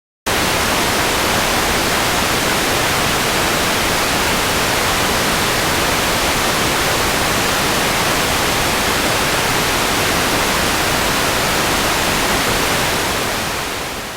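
Loud, steady television static hiss that cuts in suddenly after a moment of silence and fades out near the end: the sound of a TV station's signal going dead off the air.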